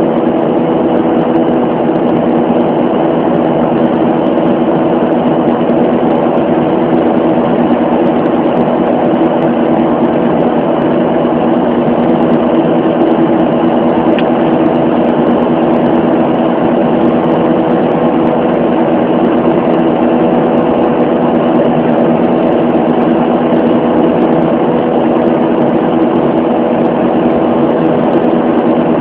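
Steady drone of a jet airliner's turbofan engines and airflow heard inside the cabin, a constant hum made of several steady tones with no change in pitch.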